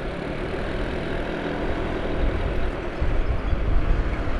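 Steady road noise from travelling in slow, congested traffic, a low rumble that gets a little louder about three seconds in.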